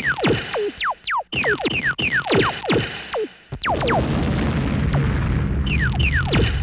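Sci-fi space battle sound effect: a rapid volley of laser blaster shots, each a quick zap falling steeply in pitch, several a second. A low rumble comes in beneath the shots about three and a half seconds in.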